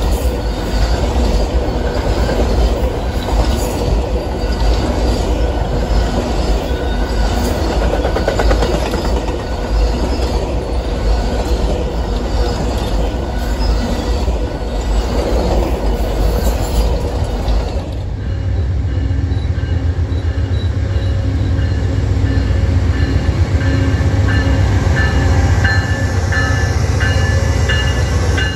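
A train rolling past: a loud, steady rumble of wheels on rail with regular clicking. About eighteen seconds in the sound changes abruptly to a deeper rumble with thin, steady high-pitched squeals from the wheels.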